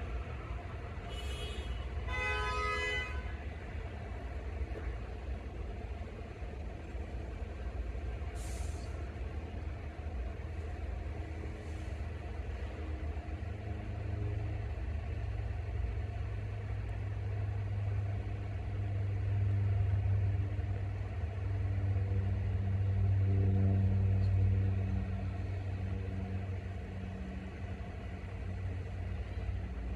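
A New York City subway train's horn gives a short blast about two seconds in, then the low rumble of the train approaching on the tracks builds, loudest a few seconds before the end, then eases slightly.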